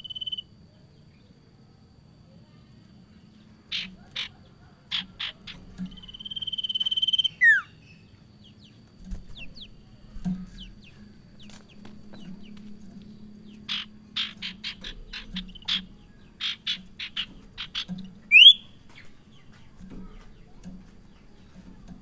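Common iora (sirtu) singing. Runs of short, sharp chipping notes come twice, and between them a long steady whistle slurs downward at its end. A quick rising whistle follows near the end.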